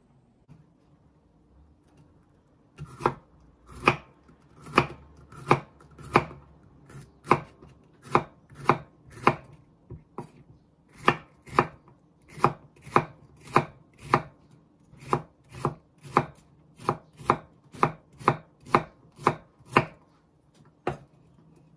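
Kitchen knife slicing a halved bitter melon (goya) into thin slices on a wooden cutting board: a steady series of knife strikes on the board, roughly one and a half to two a second, starting a few seconds in.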